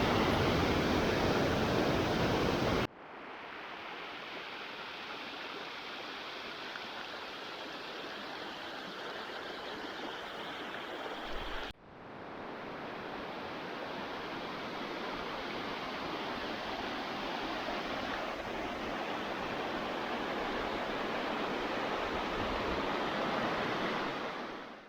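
Steady rushing of running water, in three stretches joined by abrupt cuts, the first stretch louder than the other two.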